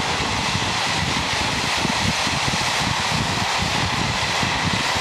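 Locomotive-hauled passenger coaches rushing past at speed behind a pair of Class 47 diesels: a steady rushing rumble of wheels on the rails.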